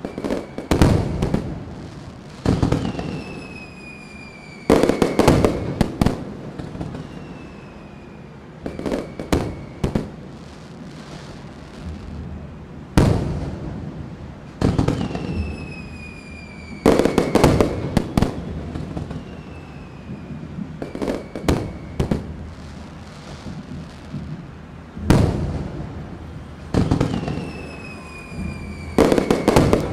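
Aerial fireworks shells bursting in a series of booms every few seconds, often several in quick succession. Some are followed by a whistle that slowly falls in pitch.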